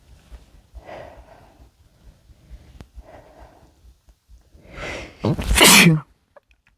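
A man sneezing: a few breaths as the sneeze builds, then one loud sneeze about five seconds in.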